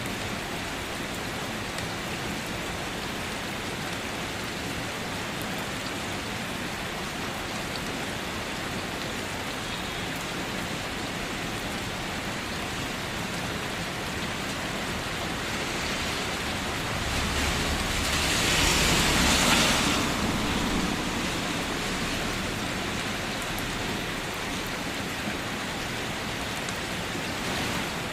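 Steady light rain falling as an even hiss. About two-thirds of the way through, a louder surge of noise with a low rumble swells and fades over about four seconds.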